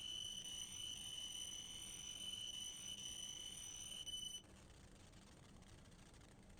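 Laser cutting machine running with a steady high-pitched whine that cuts off suddenly about four seconds in, leaving a low steady hum.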